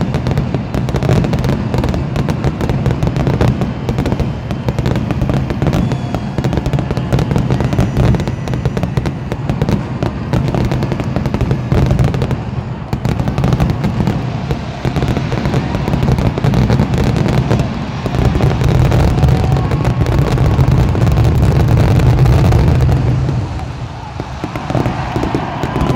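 Fireworks grand finale: a dense barrage of aerial shell bursts, the bangs coming too fast to count, easing off near the end.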